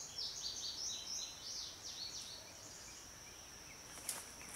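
A songbird sings a quick run of short, falling high notes over the first couple of seconds. Under it runs a steady, high-pitched insect drone. A single sharp click comes near the end.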